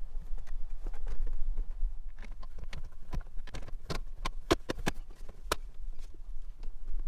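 Plastic interior trim of a Toyota Prado being pressed back into place by hand: an irregular run of sharp clicks and knocks as the panels and their clips seat, thickest in the middle.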